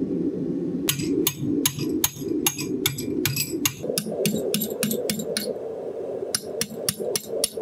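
Rapid forging hammer blows on a glowing Damascus billet of forge-welded spring washers and a nut, about five sharp strikes a second in two runs, one in the first half and a shorter one near the end, over a steady low drone.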